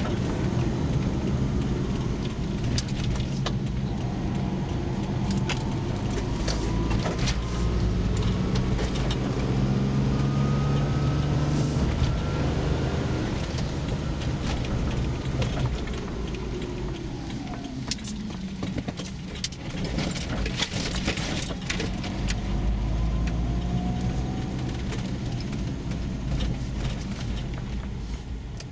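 Car engine and road noise heard from inside the cabin while driving, the engine note rising as the car gathers speed and falling as it slows, then dropping off near the end as the car comes to a stop. Light clicks and rattles are scattered throughout.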